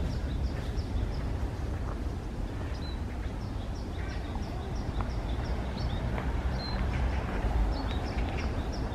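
A small songbird calling in quick runs of short, high chirps, about five a second, in three bouts: one at the start, one in the middle and one near the end. Underneath is a steady low rumble from walking on the forest path.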